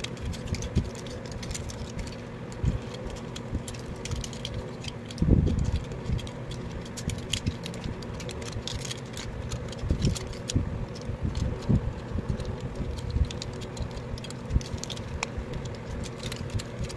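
Plastic clicks and rattles of a yellow transforming robot-car toy being handled and its parts fitted together: many small irregular clicks with a few soft knocks.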